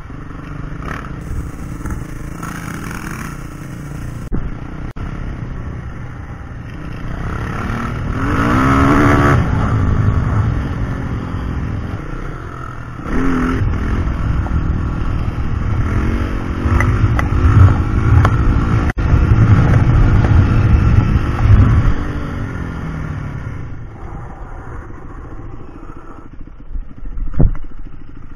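Yamaha WR450F dirt bikes riding, the nearest single-cylinder four-stroke engine revving up and easing off repeatedly, loudest through the middle with a sharp rise in level about halfway through.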